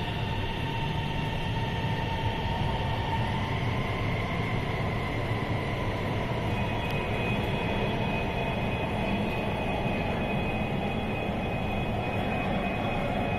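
Guangzhou Metro Line 18 train pulling out of the station and accelerating into the tunnel: a steady rail rumble with faint whining traction-motor tones that shift upward in pitch as it gathers speed.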